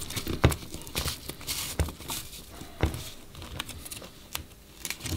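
Handling noise as a battery strap is slid through the underside of a quadcopter frame: rustling of the strap with a few sharp clicks and knocks as the frame is turned in the hands.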